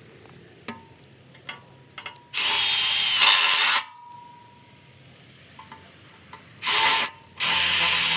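Milwaukee FUEL cordless impact driver driving self-tapping screws into a metal bracket: a few light clicks, then a run of about a second and a half, a short blip, and another long run near the end.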